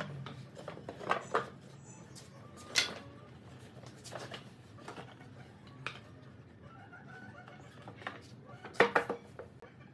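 Wooden knocks and clacks as a curved assembly of pine slats is lifted and handled on a wooden workbench: a scattering of separate sharp knocks, with a quick cluster of the loudest near the end.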